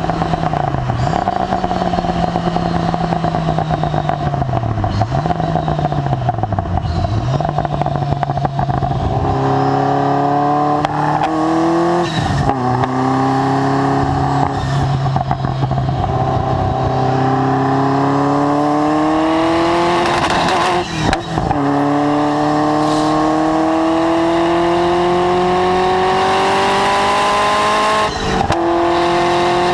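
Ferrari F40's twin-turbo V8, breathing through a Tubi Style exhaust, driven hard on track. The note holds mostly steady with a few brief dips at first, then rises through the gears, with upshifts dropping the pitch about twelve, twenty-one and twenty-eight seconds in.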